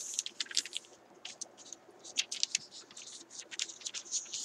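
Plastic laminating pouch with a sheet of paper inside it crinkling and crackling in quick, irregular little clicks as a hand presses and smooths it flat.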